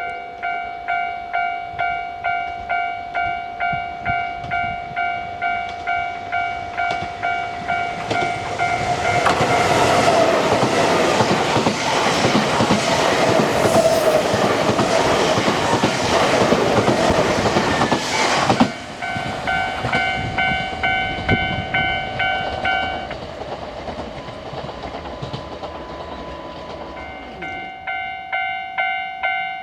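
Japanese railway level-crossing warning bell ringing about twice a second. A Nankai Koya Line train passes over the crossing for about ten seconds, its wheels clattering over the rails. The bell falls silent for a few seconds and then starts ringing again near the end, warning of another train.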